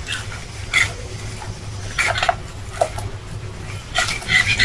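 Metal spoon scraping and clinking against a glass mixing bowl while stirring a runny flour-and-yeast paste, in short strokes at the start, about a second in, around two seconds and near the end, over a steady low hum.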